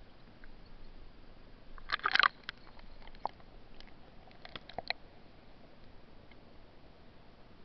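Waterproof camera housing plunging under the water's surface: a burst of crackling knocks about two seconds in, then a few fainter clicks against a low steady hiss as it sits among the underwater stems.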